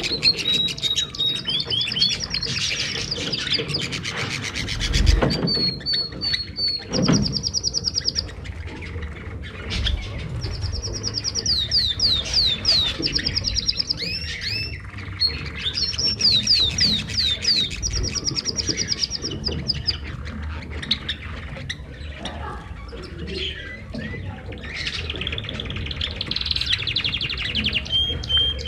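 Canaries singing: rapid trills and runs of quickly repeated high notes, with chirps, one phrase after another. A dull thump about five seconds in and another around seven seconds.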